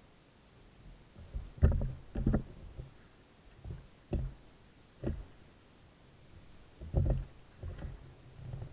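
Oars working an inflatable boat: irregular low knocks and thumps, roughly one every second or so, from the oars in their locks and their blades dipping into the water.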